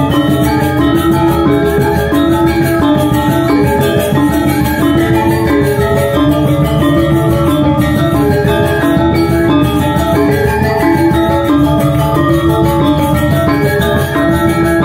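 Balinese gamelan gong ensemble playing a tabuh: bronze metallophones ring out a dense, repeating melody over two kendang drums and a small kettle gong keeping the beat.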